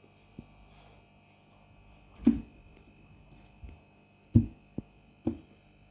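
Steady electrical hum, with several short, dull thumps scattered through it.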